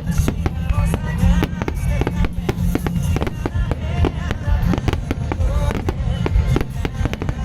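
Starmine fireworks firing in rapid succession: many sharp shell bursts and crackles close together, over a rock song with drums and singing played through loudspeakers.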